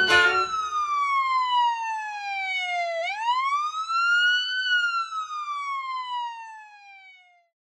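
A siren wail: one tone slides slowly down in pitch, sweeps back up about three seconds in, then slides down again and fades out.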